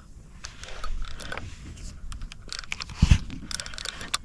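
Irregular rustling and clicking handling noise from a fishing rod and reel being worked while fighting a snagged line, with one heavy thump about three seconds in.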